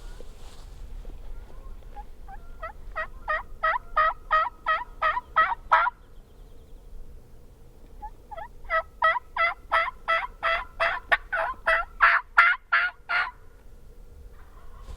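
Turkey yelping: two series of evenly spaced yelps at about three notes a second, the second series longer and louder toward its end.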